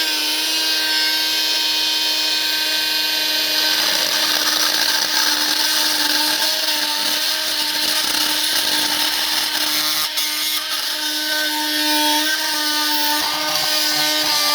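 Small handheld power tool running steadily at a constant pitch while cutting through small bits of metal left in the plaster, with a hiss of cutting noise and slight wavers in pitch as it bites after about ten seconds.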